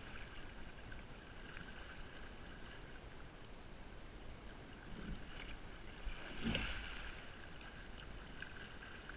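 Rowing boat being sculled slowly: water moving along the hull, with two louder stroke sounds, a splash and knock of the oars, about five and six and a half seconds in.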